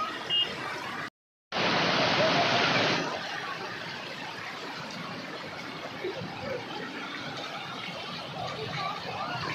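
Waterfall water rushing steadily. The sound cuts out completely for a moment about a second in, comes back louder for about a second and a half, then settles to a steady level.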